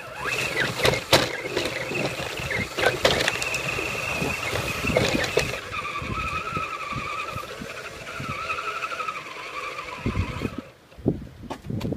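Axial SCX10 RC crawler driving: a wavering electric motor and gear whine with clicks and knocks from the chassis. The whine stops about ten and a half seconds in, leaving a few scattered clicks.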